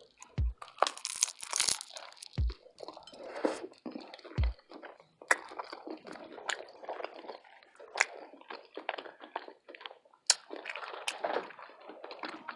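Close-miked chewing and biting into a vegan Philly cheesesteak burrito: crunches, wet mouth smacks and sharp clicks come irregularly all the way through. A deep soft thump repeats about every two seconds in the first half.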